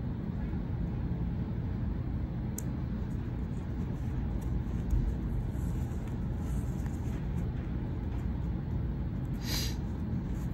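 Steady low background rumble. About nine and a half seconds in, a brief rasp as sewing thread is pulled through the fabric.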